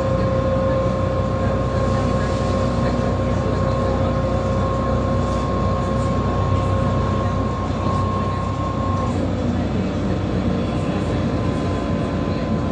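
Inside a LiAZ-5292.67 natural-gas city bus at cruising speed: a steady engine and road rumble with a steady whine that fades out about nine seconds in.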